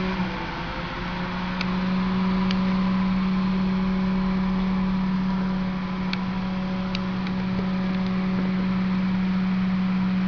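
Steady electrical hum and whir of running bench equipment, with a few faint ticks.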